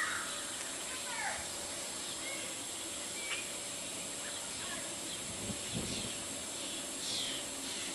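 Outdoor ambience with birds calling: scattered short chirps and a few quick downward-sweeping calls, over a steady high hiss.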